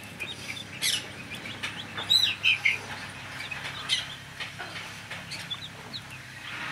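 Newly hatched chicks peeping in scattered short, high chirps, a few of them falling in pitch.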